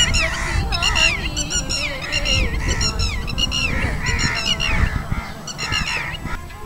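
A flock of birds calling over and over, harsh calls about two a second that rise and fall in pitch. Under them is a steady low rumble of wind on the microphone.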